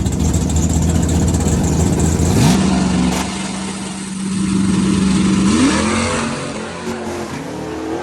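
Car engine running under throttle. Its pitch rises sharply about two and a half seconds in, holds steady for about three seconds, then climbs again.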